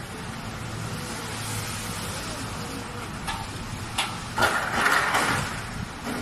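Outdoor street ambience: road traffic with a steady low hum, a few sharp clicks, and a louder rush of noise lasting about a second near the end, under indistinct voices.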